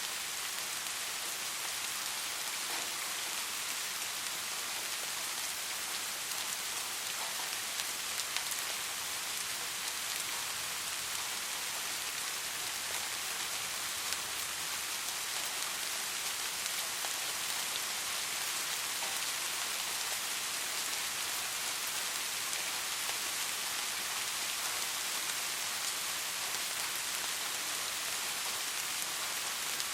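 Soft, steady rain: an even hiss of falling rain with scattered individual drops pattering on a surface.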